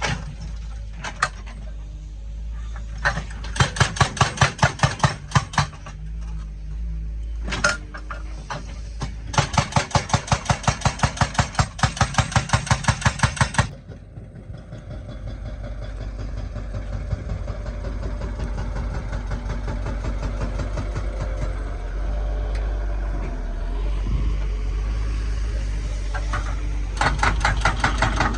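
Excavator-mounted hydraulic breaker hammering in runs of rapid, evenly spaced blows over the steady running of the excavator's diesel engine. A short run of blows comes a few seconds in and a longer one of about four seconds after that. The engine then runs on alone until the hammering starts again near the end.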